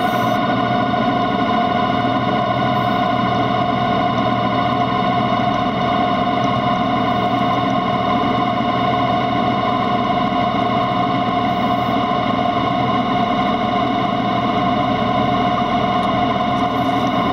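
Background music: a steady wash of held, sustained notes with no beat or change.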